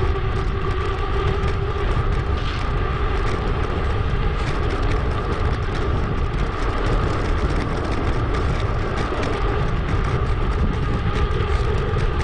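Steady rumble of wind and rolling noise picked up by a bicycle-mounted action camera while riding, with a faint steady hum running through it.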